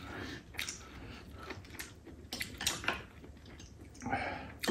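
Utensils on tableware: a few scattered light clicks and taps of chopsticks and a spoon against ceramic bowls.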